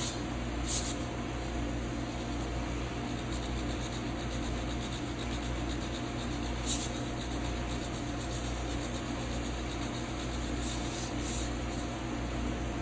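Steady low electrical hum, with a few brief rasping hisses.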